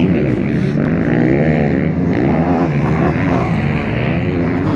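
Several motocross bikes running on the track, their engines revving hard with the pitch repeatedly rising and falling as the riders work the throttle and shift, the sounds of more than one bike overlapping.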